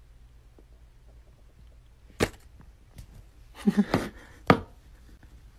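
Sharp plastic knocks and clacks from a plastic cup stuck on a cat's head as the cat bumps about: one knock about two seconds in, a quick cluster about a second later, and one more loud clack half a second after that.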